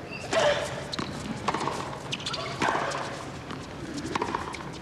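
Tennis ball struck by rackets and bouncing on a hard court. The serve comes about half a second in, followed by several sharp, separate hits of a baseline rally.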